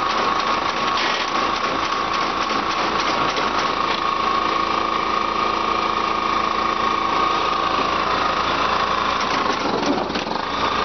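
Small engine of a used four-row rice transplanter running steadily, with a steady high whine over it.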